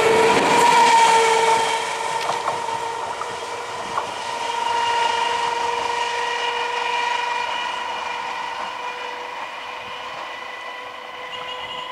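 Indian Railways EMU local train passing close by: loud rushing wheel-on-rail noise in the first two seconds, with a couple of sharp clicks, while a long steady horn note sounds throughout and slowly fades as the train draws away.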